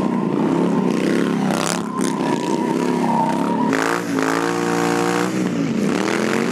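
Motorcycle engine revving hard through a burnout, with a steady tyre squeal for the first half. Near the middle the revs are held flat for about a second and a half, then drop and climb again.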